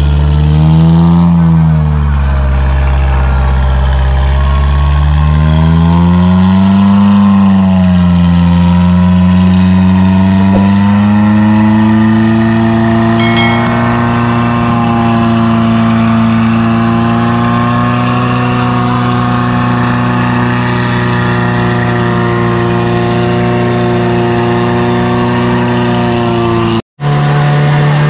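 Suzuki 4x4's engine revving, rising and falling twice, then held at high revs under load as the vehicle climbs through deep mud. A few light ticks in the middle, and the sound drops out for an instant near the end.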